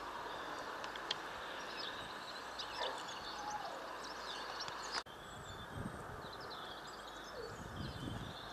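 Small garden birds twittering, many short high chirps, over a steady background hiss. The sound drops out for an instant about five seconds in.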